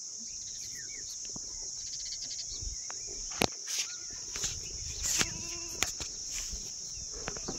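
Steady high chirring of crickets, with a few sharp knocks from handling and a short goat bleat about five seconds in.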